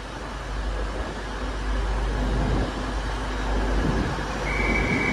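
Steady low rumble of trains standing and moving at the station platforms. A steady high-pitched tone joins about four and a half seconds in.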